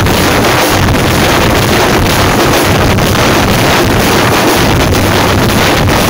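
A group of frame drums beaten hard and continuously by several drummers at once, so loud and close that the recording is overloaded into a dense, distorted roar with no break.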